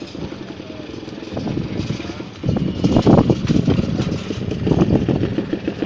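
Unintelligible crowd chatter over a steady idling engine, the voices growing louder about two and a half seconds in.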